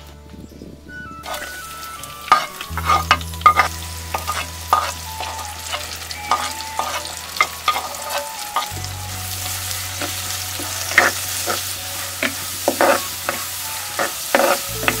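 Chopped onion, green chilies, curry leaves and pandan leaf sizzling in hot coconut oil in a clay pot. The sizzle starts about a second in, and a spoon clacks and scrapes against the pot many times as they are stirred.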